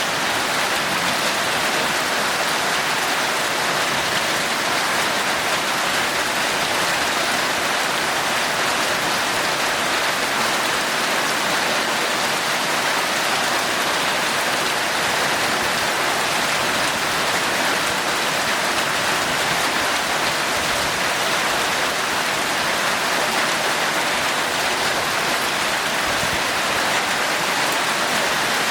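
Heavy, torrential rain falling in a steady, even hiss that doesn't let up.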